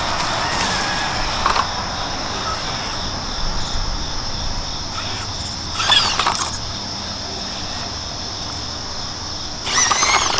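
Insects chirring steadily in a high, even tone, with two short whining bursts, one about six seconds in and one near the end.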